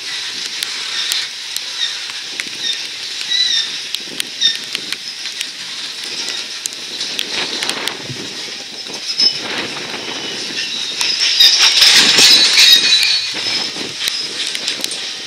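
Covered hopper cars of a freight train rolling past, the wheels clicking over the rails with a high-pitched wheel squeal that comes and goes and is loudest about three-quarters of the way through.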